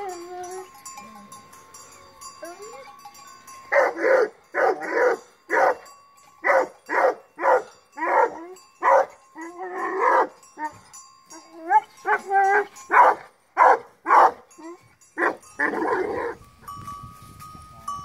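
A dog barking over and over in short barks, often in pairs or threes, starting about four seconds in and stopping shortly before the end.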